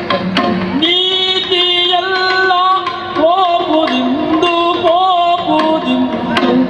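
Yakshagana music: a singer's gliding melodic line begins about a second in over sustained pitched accompaniment, with sharp drum strokes near the start and near the end.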